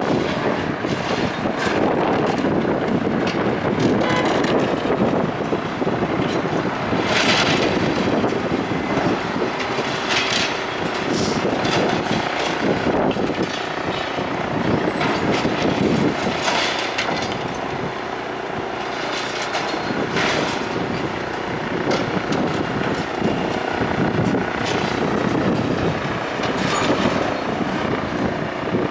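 Heavy demolition machinery running continuously, with wind buffeting the microphone.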